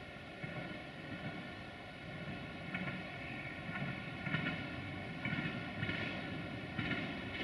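Duewag BR628 diesel railcar approaching unseen round a bend: a steady engine drone with brighter pulses every second or so, growing slightly louder.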